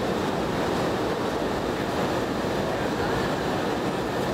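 Steady cabin noise of a Boeing 717-200 in flight: an even rush of air past the fuselage with the low hum of its rear-mounted engines underneath, unchanging throughout.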